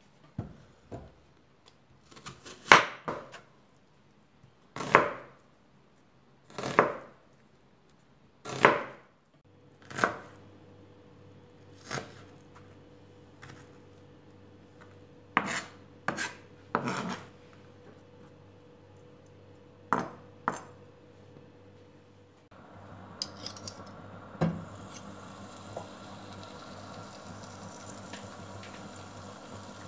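A kitchen knife chopping a peeled onion on a plastic cutting board: sharp knocks at irregular intervals, some in quick pairs. Near the end the chopping gives way to a steady hiss from a frying pan on a gas hob, with butter starting to melt in it, with a few light clicks.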